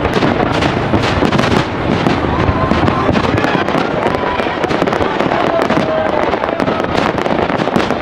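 Fireworks display: aerial shells bursting and crackling in a dense, unbroken run of bangs, many overlapping each second.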